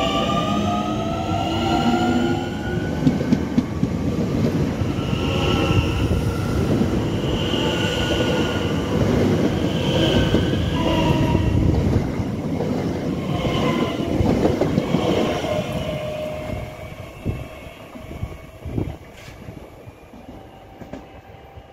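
Z 50000 Francilien electric train running past close by, its traction motors whining and rising in pitch as it gathers speed, with wheel squeal over the rails. The sound fades away over the last few seconds as the train moves off, with a few sharp knocks near the end.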